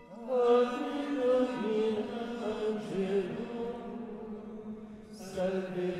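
Gregorian plainchant sung in unison by men's voices, a slow melody gliding from note to note, with a short break near the end before the next phrase begins.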